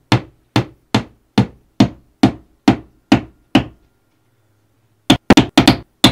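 A nail being hammered into a wall to hang a picture frame. There are about ten even strikes, a little over two a second, then a pause and a quick flurry of strikes near the end.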